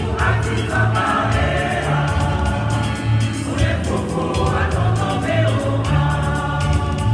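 Mixed choir singing a Congolese gospel song in harmony, over a low bass line and a steady beat.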